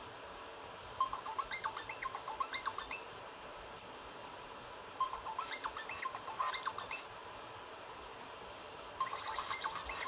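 A Nokia N8 ringtone of bird-like chirping: a burst of about two seconds of rapid chirps that repeats every four seconds, three times.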